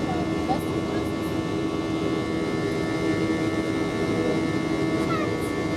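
Airbus A319 cabin noise during the climb after takeoff: the steady roar of the jet engines and airflow, with a constant hum of several fixed tones.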